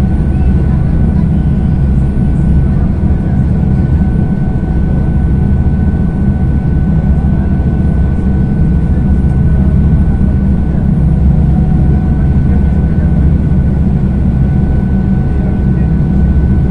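Harbour passenger ferry under way at cruising speed: a steady low engine drone with water rushing past from the wake, and a thin steady whine above it.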